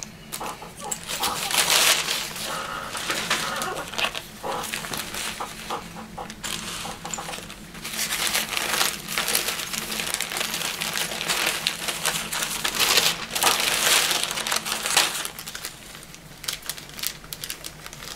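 Sheets of packing paper being unfolded and handled in a cardboard box, a dry rustling and crinkling that swells and fades, loudest about two seconds in, around nine seconds and around fourteen seconds.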